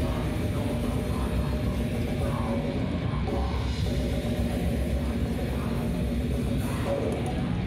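Death/grind band playing live: distorted guitars and bass over drums, a dense, unbroken wall of sound.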